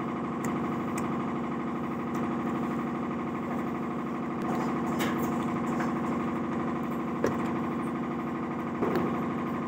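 Generator engine running steadily, a constant hum with a few faint clicks over it.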